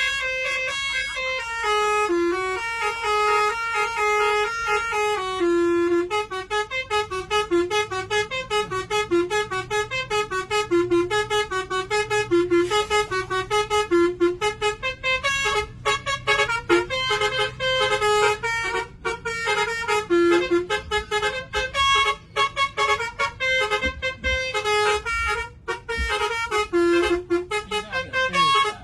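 Bus 'telolet basuri' musical air horn playing a tune: held horn notes at first, then from about six seconds in a quick run of notes changing several times a second.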